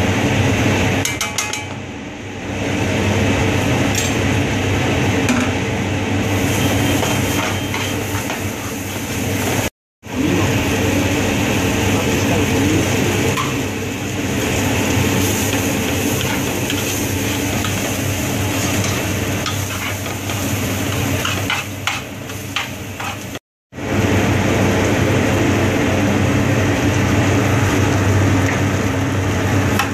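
Rice frying in oil in a large metal pan over a steady mechanical hum, with a metal spoon clinking and scraping against the pan as vegetables are tipped in and the rice is stirred. The sound drops out briefly twice.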